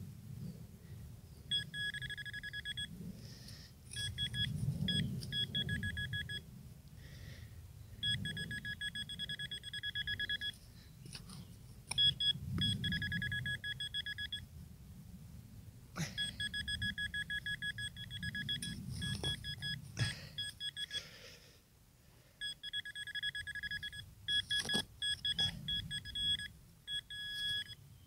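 Metal-detecting gear giving a rapid pulsing electronic beep in repeated stretches of one to a few seconds, signalling buried metal in a deep hole. Low scuffing of digging in soil sits underneath, with a few sharp knocks.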